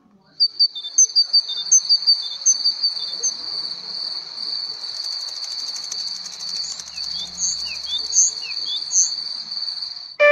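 Crickets chirping as meadow ambience: a steady high trill with short chirps over it. It starts about half a second in, and from about the middle a few short falling notes repeat under it.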